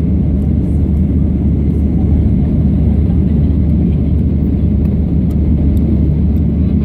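Steady low rumble of an airliner's engines and airflow heard inside the passenger cabin during takeoff.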